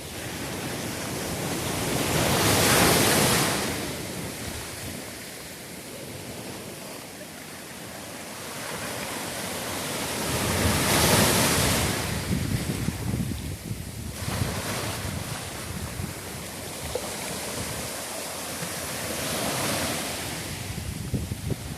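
Sea waves breaking and washing in, the rush swelling and falling back three times, with wind buffeting the microphone.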